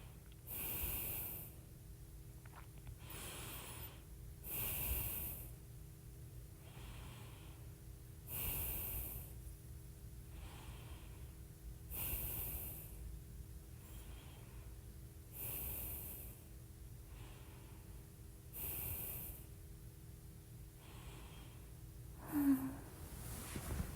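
A woman's slow, heavy sleep breathing, close to the microphone, with light snoring. The louder breaths come about every three and a half to four seconds with softer breaths between them, and a brief murmur comes near the end.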